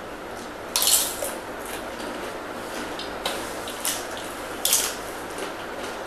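Crisp crackers being bitten and crunched while eating: a handful of short, sharp crunches, the loudest about a second in, over a steady background hiss.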